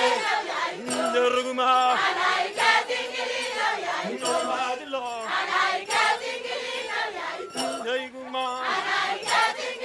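A man sings a lead line into a microphone while a group of women and students sing with him and clap, holding some notes.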